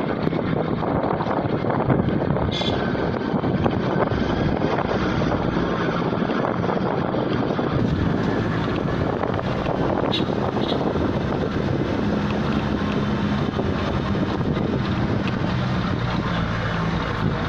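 Car driving along a rough dirt mountain road: steady engine and tyre noise mixed with wind on the microphone.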